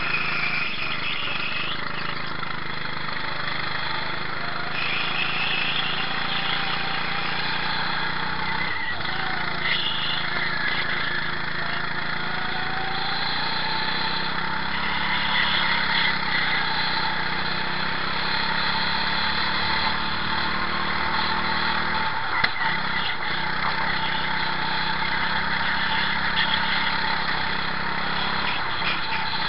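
Go-kart engine running hard on a racing lap, heard onboard, its pitch rising and falling with the throttle. The note drops briefly twice, about nine seconds in and again about twenty-two seconds in, before picking up again.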